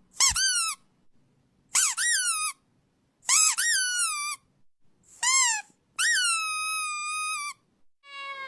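Five high-pitched, squeaky animal calls with short gaps between them, each dropping in pitch, the last one held longest.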